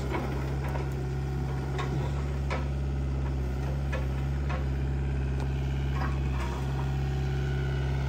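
Heavy-equipment diesel engine running steadily at a low, even speed, with a few faint clicks over the drone.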